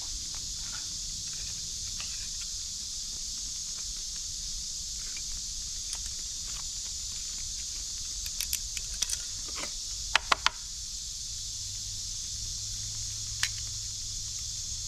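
Steady high-pitched chorus of crickets (kuliglig). A few sharp clicks sound about two-thirds of the way through.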